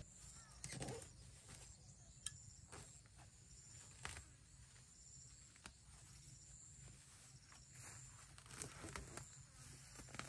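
Near silence, broken by a few faint scattered rustles and light taps.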